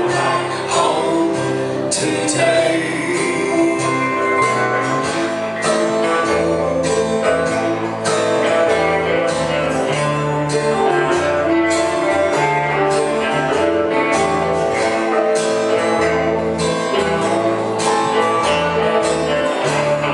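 Live band playing an instrumental passage of a song, with strummed and plucked guitar over a moving bass line and a steady beat.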